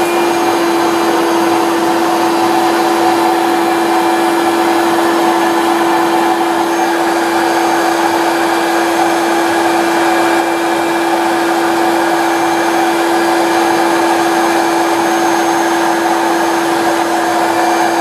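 1991 Hoover Turbopower 1 Freedom upright vacuum cleaner running steadily with its hose attached, a constant motor whine at one pitch over the rush of air.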